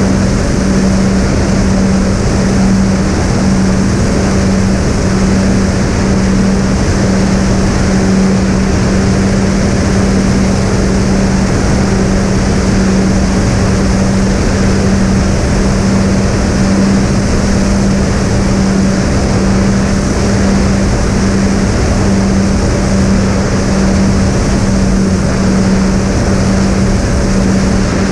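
Twin brushless electric motors spinning three-blade propellers at a constant cruise throttle: a steady, unchanging hum over a loud rush of wind noise.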